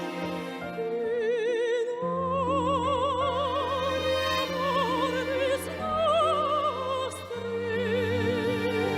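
Operatic singing with wide vibrato on long held notes, over orchestral accompaniment.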